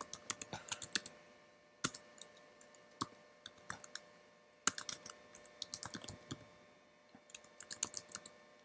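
Typing on a computer keyboard: quick runs of key clicks in several bursts, separated by brief pauses.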